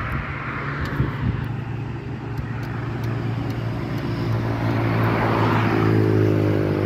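Motor vehicle engine running with a steady low hum under road noise, growing louder and rising slightly in pitch over the last two seconds.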